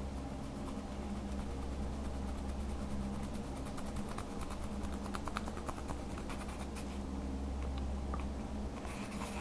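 A plastic stick scraping and crumbling pressed eyeshadow powder out of its compact pan: a fast run of small, dry, scratchy clicks, with a louder scrape near the end. A steady low hum runs underneath.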